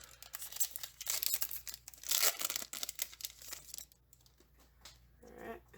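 Foil Pokémon booster pack wrapper being torn open and crinkled, a dense crackle that dies away about four seconds in.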